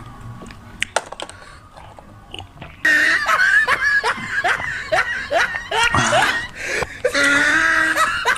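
Faint clicks, then laughter that starts abruptly about three seconds in: a rapid run of 'ha' calls, each falling in pitch, two or three a second, over a steady high tone.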